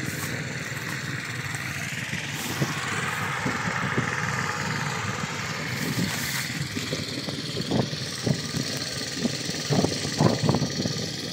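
Small engine of a walk-behind rice reaper running steadily. From about two-thirds of the way in, several short knocks stand out above it.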